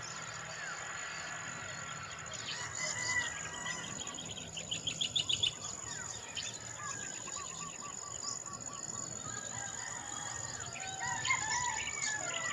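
Birds chirping and calling, a rooster among them, over a steady high-pitched insect drone. A fast trill of quick repeated notes stands out about five seconds in.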